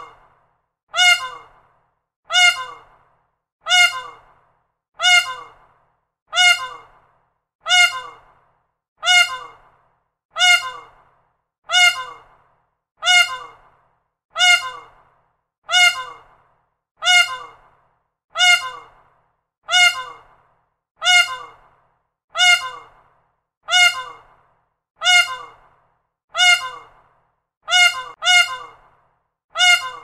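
Peacock calling: a short, sharp, harsh call repeated evenly about every 1.3 seconds, each call alike and fading quickly.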